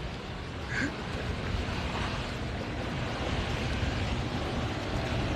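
Steady rushing noise with a low rumble, slowly getting louder.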